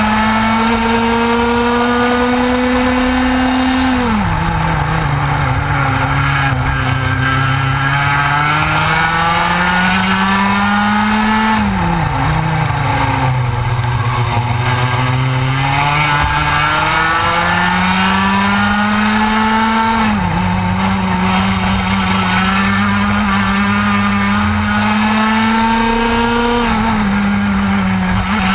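A TKM Extreme kart's 100cc two-stroke single-cylinder engine at racing speed, heard from on board: its pitch climbs steadily along each straight and falls off sharply into the corners, twice deeply and twice briefly.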